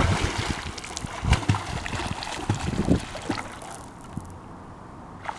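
Water splashing as a child kicks and swims through a pool, loudest at the start and fading away after about three seconds.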